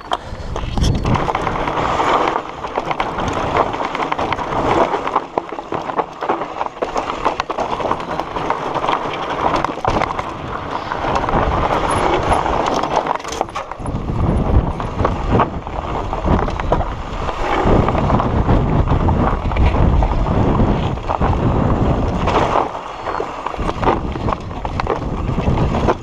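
Mountain bike rolling over a rocky dirt trail: tyres crunching on stones and gravel, the bike rattling and knocking over bumps, with wind buffeting the camera microphone.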